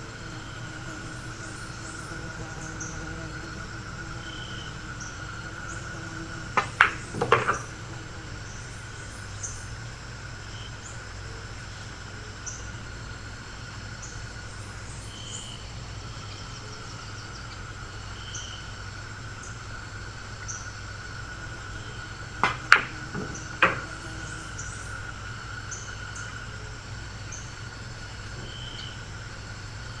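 Pool balls clacking in two quick clusters about fifteen seconds apart, each a few sharp clicks of the cue striking the cue ball and the balls colliding, over a steady room hum.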